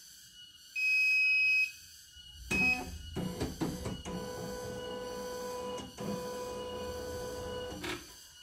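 CNY E900 computerized embroidery machine switching on: a long high electronic beep about a second in, then a shorter beep with a run of clicks. Its motors then run with a steady whine for about four seconds, with a brief break midway, ending with a click near the end.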